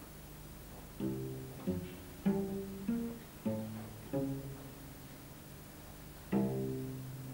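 Solo cello playing a run of sharply attacked low notes, six of them about half a second apart, each dying away. After a short pause a last note comes near the end and rings on.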